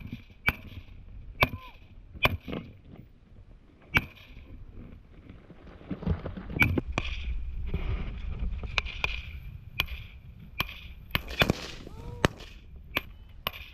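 Rifles firing single shots at irregular intervals, about a dozen sharp cracks, some close and loud, others further off, during a fire-and-maneuver drill. Between about six and nine seconds in, a low rumbling noise comes up under the shots.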